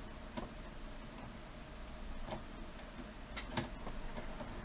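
A few faint, sharp clicks of a screwdriver turning a threaded screw into a VCR's metal chassis bracket, the screw being seated in its thread; the loudest are a close pair about three and a half seconds in.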